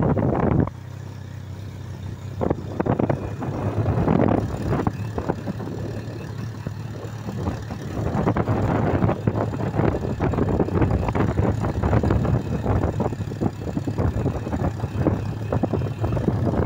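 Motorcycle engine running while the bike is ridden, steady under a rough, fluctuating ride noise; quieter for the first few seconds, then louder.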